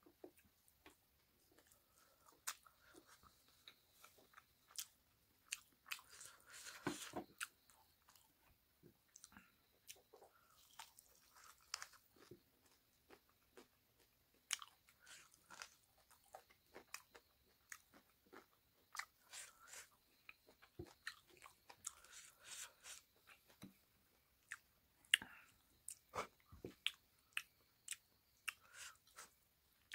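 Close-miked eating sounds: chewing and lip smacks of a mouthful of pork and rice eaten by hand, in irregular short clicks.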